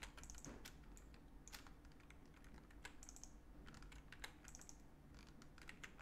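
Faint computer keyboard key presses and mouse clicks, scattered irregularly, with a few short clattery runs of rapid clicks.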